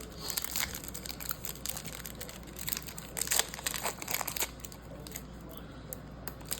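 Trading-card pack wrapper crinkling and tearing as it is ripped open and handled, in irregular crackly bursts for the first four and a half seconds, then quieter.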